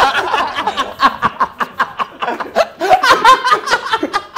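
Men laughing in a run of short chuckles and snickers.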